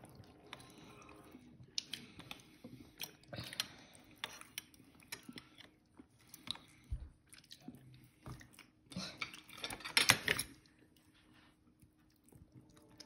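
Forks and knives picking at cooked crabs: irregular clicks, cracks and scrapes of metal on crab shell and on a ceramic dish, loudest in a cluster about ten seconds in.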